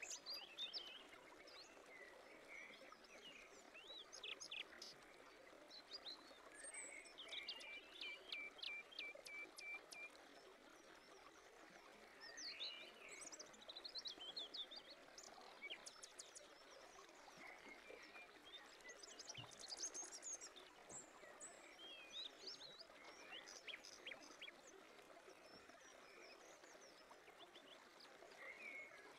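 Faint birdsong: several small birds chirping, with a rapid trill of even notes a few seconds in, over a soft steady background hiss.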